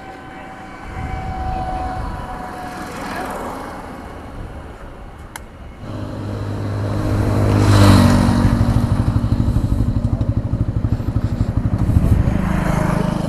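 A motorcycle engine starts running close by about six seconds in and carries on with a steady throb, while other vehicles pass by.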